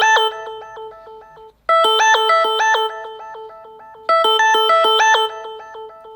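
A Samsung Galaxy Note 20 Ultra ringtone: a short melody of quick ringing notes that fades away, then starts over about every two and a half seconds.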